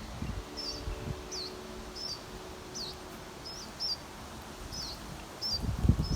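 A small bird calling repeatedly: short, high chirps about two a second, some hooked up and down in pitch. Low rumbling noise comes in near the end.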